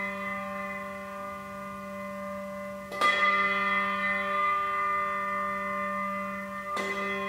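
A bell struck at slow, even intervals of about four seconds: one stroke still ringing as it starts, then two more strokes about 3 s in and near the end, each ringing on with a long, many-toned hum into the next.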